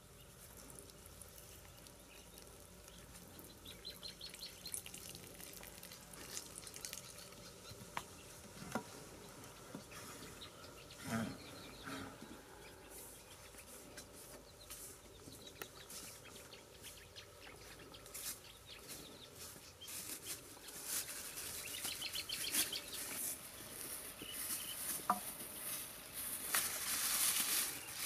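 Scattered knocks, scrapes and rustles of hands working a green bamboo tube on dry leaf litter. Near the end a plastic bag crinkles as it is handled, and faint bird chirps come twice.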